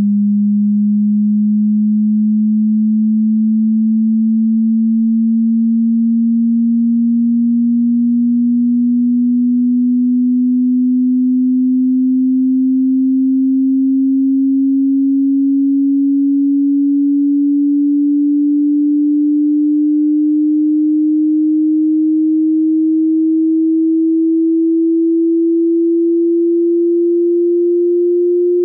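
Hearing-test sine-wave sweep: a single low, pure electronic tone rising slowly and steadily in pitch at a constant loudness.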